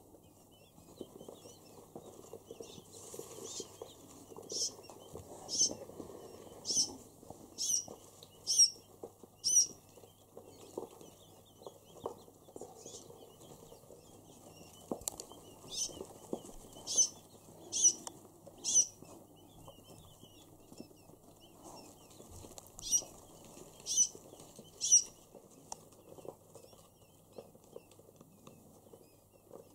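Newly hatched quail chicks peeping: short, sharp, high-pitched peeps about one a second, in three runs of three to six peeps with pauses between.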